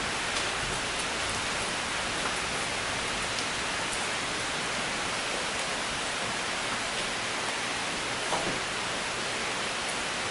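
Steady, even hiss of background noise, with a few faint light clicks and one small knock as PVC pipe fittings and a can of PVC cement are handled.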